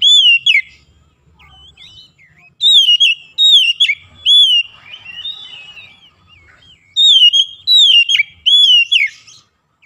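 Oriental magpie-robin (kacer) singing: loud phrases of clear whistled notes, each dipping and rising again in pitch. The phrases come in three bursts a few seconds apart, with fainter notes in between.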